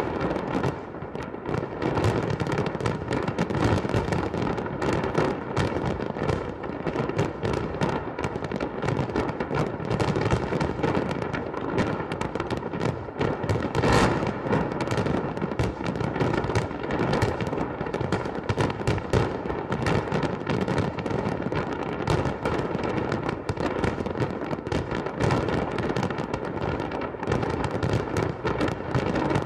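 Fireworks going off in a dense, continuous barrage of overlapping bangs and crackles, with one especially sharp bang about halfway through.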